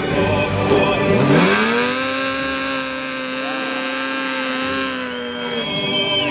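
Sport bike engine revved up quickly and held at high revs for several seconds during a burnout, the back tyre spinning and smoking, then the revs drop near the end.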